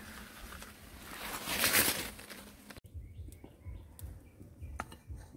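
Outdoor ambience: a hissing rush of noise swells and fades about two seconds in. After a sudden cut comes a quieter background with faint bird chirps and a few light clicks.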